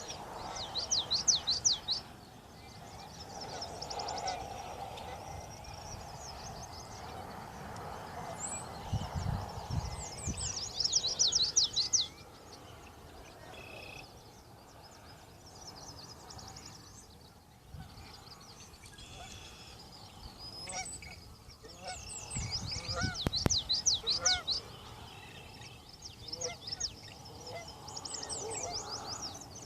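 Geese honking, with a small bird's rapid high trill repeating every several seconds and a couple of low thuds.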